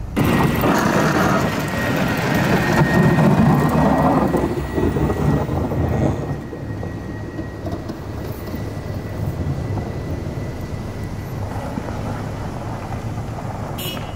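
A vehicle driving on a snow-covered road, its engine and tyres a loud rush for about the first five seconds, then a quieter steady rumble. A faint steady whine runs underneath.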